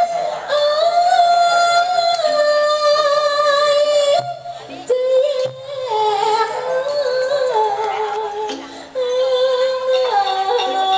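A woman singing a slow Thai song through a microphone and PA, holding long, wavering notes over backing music, with short breaks between phrases.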